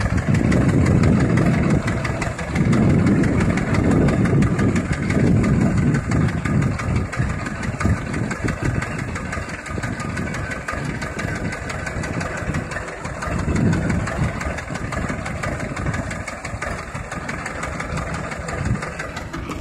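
HMT 2511 tractor's two-cylinder diesel engine idling steadily, somewhat louder in the first few seconds.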